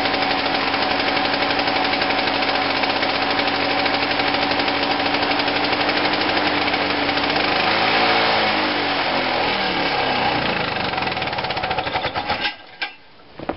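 Victa lawn mower's two-stroke engine running steadily after being revived on two-stroke fuel; its note wavers about two-thirds of the way through, and it cuts out near the end with a few brief sputters.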